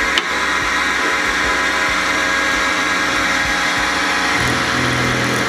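Drill press running steadily, its 2 mm drill bit boring a small hole through a wooden star knob. A lower hum joins about four and a half seconds in.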